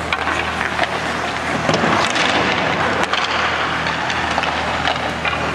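Ice rink sound during a hockey practice: a steady rush of skates on the ice with scattered sharp clicks of sticks and pucks, over a low steady hum.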